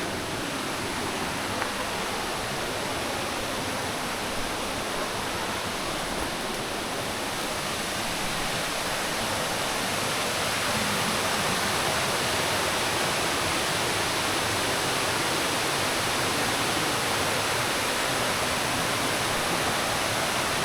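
Thiririka Waterfall's falling water rushing steadily, growing a little louder about halfway through.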